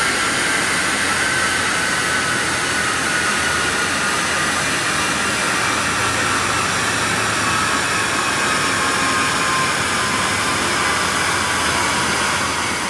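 Steady rushing noise with a faint whine sliding slowly lower: the chassis dyno rollers and the car's driven wheels spinning down after a run, mixed with cooling-fan air. It fades out near the end.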